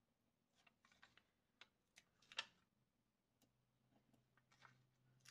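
Faint scattered ticks and crinkles of fingers peeling the backing paper off small pieces of 3D foam tape on a die-cut paper shape. A faint low hum sets in about halfway through.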